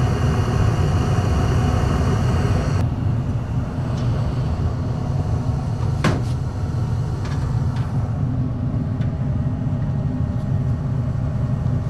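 Gas furnace running with its burners lit and the draft inducer motor on: a steady low rumble, with a faint high whine that stops about three seconds in and a couple of light clicks. It is running normally with no fault code after a new temperature limit control was fitted in the burner box.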